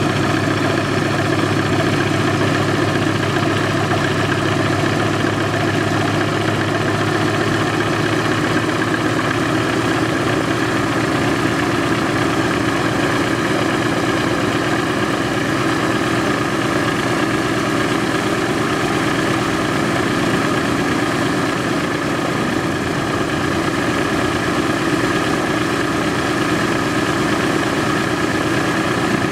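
A C-47's Pratt & Whitney R-1830 Twin Wasp radial engine, running uncowled, runs steadily on a brief warm-up run ahead of a compression test. Its low note shifts slightly about eight seconds in.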